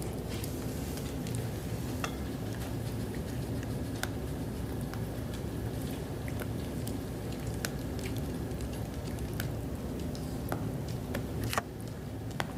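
A Coton de Tulear puppy chewing and pawing a plush toy: scattered small clicks and soft rustles, with a sharper click near the end, over a steady low room hum.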